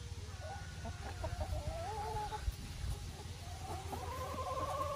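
Chickens in a coop clucking and calling, with a series of short wavering calls early on and a longer drawn-out call about four seconds in.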